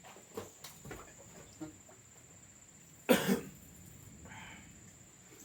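A person coughing once, sharply, about three seconds in, with a few faint clicks before it.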